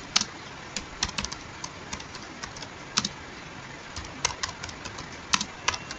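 Computer keyboard typing: irregular keystroke clicks, a few a second with short pauses between bursts, over a steady background hiss.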